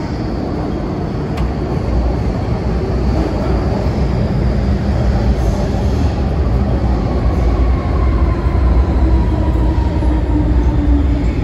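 MTR M-train electric multiple unit running past a station platform without stopping: a loud, steady rumble of the wheels on the rails, with a whine that falls in pitch over the second half as the cars go by.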